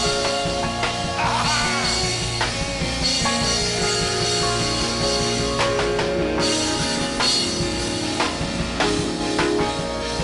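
Worship band music with drum kit and guitar and sustained chords, with some singing.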